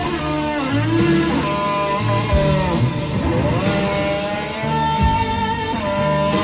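Background music: an instrumental passage of a rock-style song, with a gliding lead guitar melody over bass and drums.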